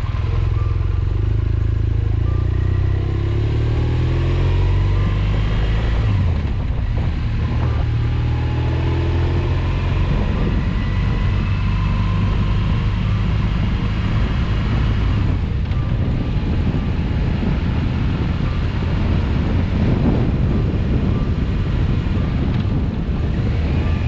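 BMW R 1200 GS motorcycle's flat-twin engine pulling away and accelerating, its pitch rising through a few gear changes over the first several seconds, then running on steadily under way, heard from on the bike.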